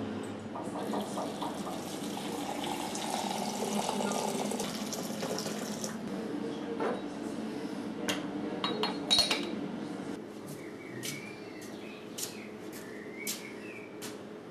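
Water running for several seconds, followed by a cluster of ringing clinks of china crockery, such as a teapot lid being set in place, and a few lighter clinks near the end.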